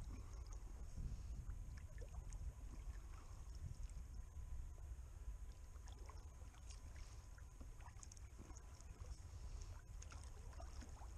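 Faint water lapping and trickling against a kayak hull, with small scattered ticks over a low steady rumble.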